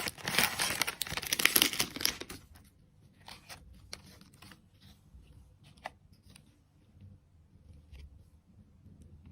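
Candy packaging being crinkled and torn open, loud and crackly for about the first two seconds. It stops suddenly, leaving a few faint small taps and clicks.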